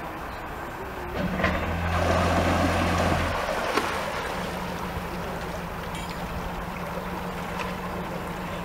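Narrowboat's diesel engine revving up about a second in as the boat pulls out of a canal lock, with its propeller churning the water. After about two seconds it eases back and runs on steadily.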